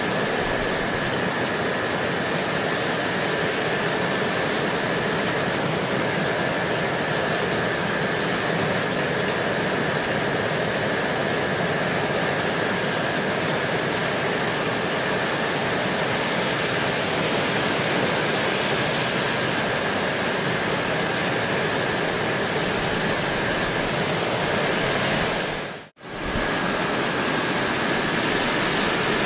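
Gentle rain falling steadily, an even hiss with a faint steady high tone beneath it. The sound fades out for a moment near the end and comes straight back.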